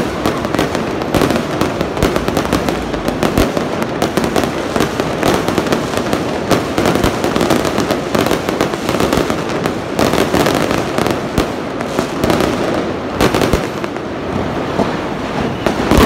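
Fireworks display: aerial shells bursting overhead in a rapid, unbroken barrage of bangs.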